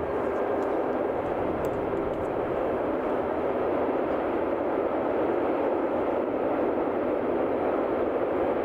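Freight train of tank wagons rolling along a curving line, heard from a distance as a steady, even noise of wheels on the rails.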